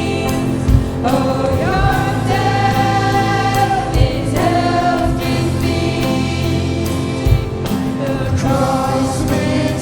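Church worship band and singers performing a contemporary Christian song: long held sung notes over a steady bass, with a deep drum hit every few seconds.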